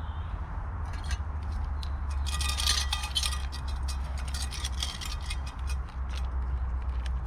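Metal spoon and camp cookware clinking and scraping, a quick flurry of ringing clinks about two seconds in, with scattered clinks before and after.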